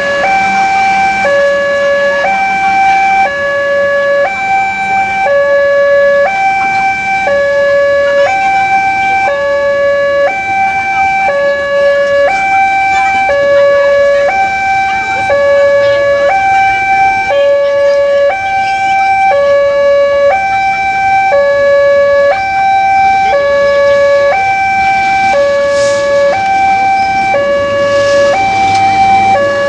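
Two-tone hi-lo siren sounding steadily, switching back and forth between a higher and a lower note about once a second.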